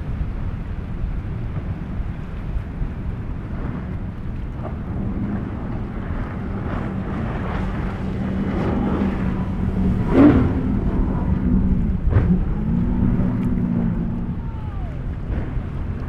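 Twin outboard motors of a center-console catamaran running fast through choppy water, a steady engine note that swells and fades as the boat passes, over heavy wind on the microphone and splashing water. A sharp thump comes about ten seconds in.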